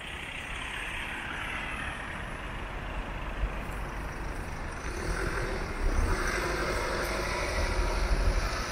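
Road traffic passing on a street: cars going by with tyre noise that swells and fades, over a patchy low rumble.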